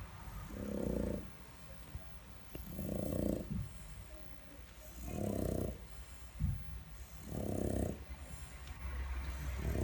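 Boston terrier snoring loudly in its sleep, one snore about every two seconds, with a short sharp sound about six and a half seconds in.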